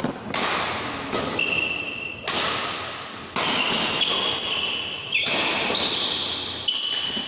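Badminton doubles rally in an echoing hall: sharp racket hits on the shuttlecock, each followed by a spreading echo, and high shoe squeaks on the court floor from about a second and a half in.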